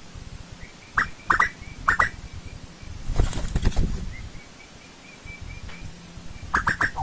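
Asian koel calling: three short upswept notes between one and two seconds in, then a quick run of notes near the end that opens the next call series. A brief rustling noise about three seconds in.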